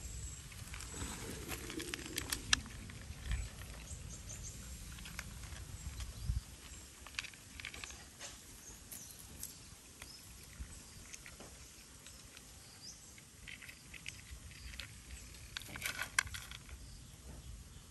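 A cat chewing dry kibble: irregular small crunches and clicks, bunching up about sixteen seconds in.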